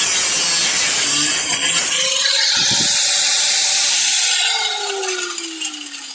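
Power cut-off tool cutting through rusted sheet-metal trunk floor pan with a loud, steady hissing grind. About four and a half seconds in it is released, and its whine falls in pitch as it spins down.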